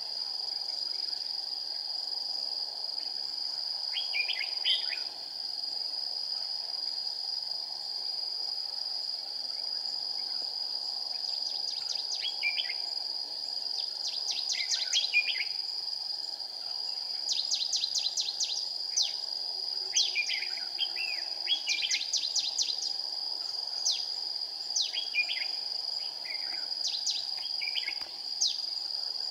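Red-whiskered bulbul singing short, quick warbled phrases: a couple early on, then one every second or two through the second half. A steady high-pitched insect drone runs underneath.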